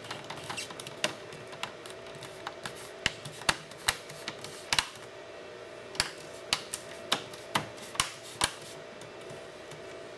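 Plastic screen bezel of a laptop being pressed back into place around the display, its clips snapping in with a string of sharp clicks at uneven intervals.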